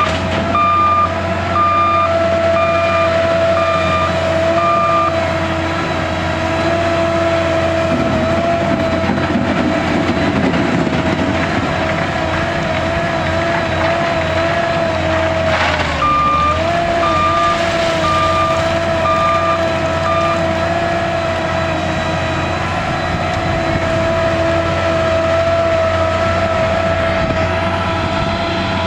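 A wheel loader's diesel engine running steadily with a high whine. Its reversing alarm beeps in two runs of about half a dozen beeps each: one at the start and one a little past halfway.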